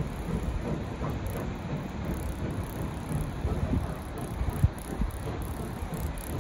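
Narrow-gauge passenger train rolling across a steel trestle: a steady low rumble of the coaches on the rails and bridge.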